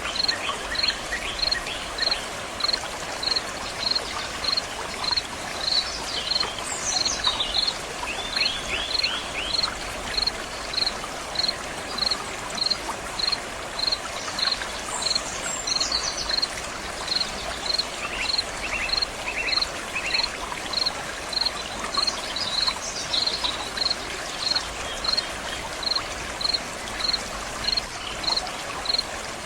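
Water running steadily in a stream, with a cricket chirping in an even rhythm of about two chirps a second throughout. A few bird calls come in now and then.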